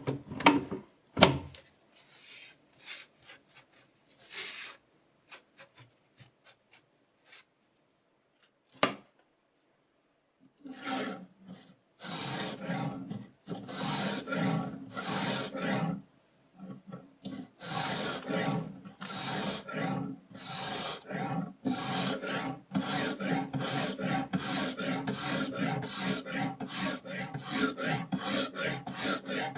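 Sharpening stone scraping along a knife blade's edge. A few knocks and short scrapes come first, then steady back-and-forth strokes that quicken to about two a second.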